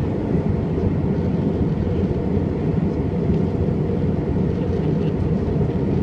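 Steady low cabin noise of a jet airliner in flight, the engines and rushing air heard from inside the passenger cabin.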